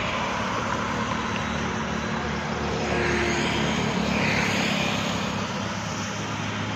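Steady road traffic noise from vehicles on a highway, with a constant low engine hum underneath, swelling slightly midway as a vehicle passes.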